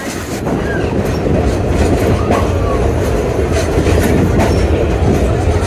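Narrow-gauge train rolling along the track with a steady low rumble, wheels clicking over the rail joints and a few faint short squeals.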